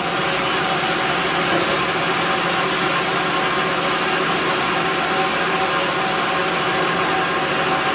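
A 5-gallon bottle rinsing, filling and capping machine running: a steady mechanical noise with a constant hum underneath.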